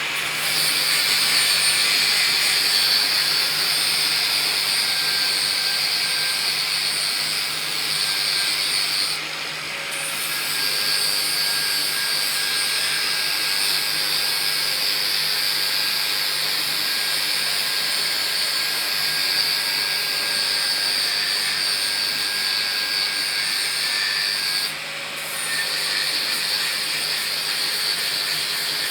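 Power grinder running continuously and grinding, a steady high-pitched hiss over a low motor hum. The high grinding noise drops out briefly twice, about nine seconds in and near twenty-five seconds.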